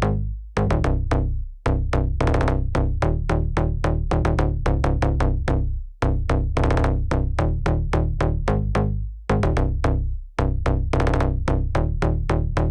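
Electronic background music: a fast, even beat of short synthesizer notes over a heavy bass, with brief breaks in the rhythm.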